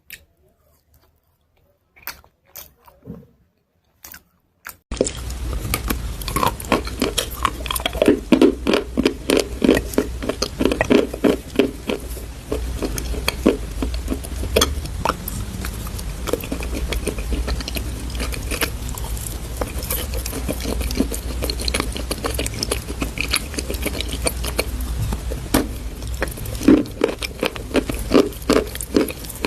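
Chalk paste being crunched: a few sparse crackles, then from about five seconds in a dense, continuous run of crunchy crackling over a steady low hum.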